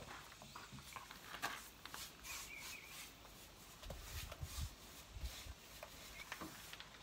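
Faint outdoor ambience: scattered light rustles and knocks, with a short warbling bird call a couple of seconds in. Low dull bumps come around four to five seconds in.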